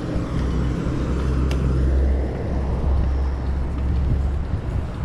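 Wind buffeting the microphone of a rider-mounted camera on a moving bicycle: a steady low rumble with road noise, and one short click about one and a half seconds in.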